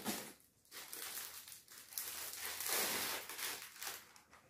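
Paper shopping bag rustling and crinkling in several bursts as a folded saree is pulled out of it, loudest about two to three and a half seconds in.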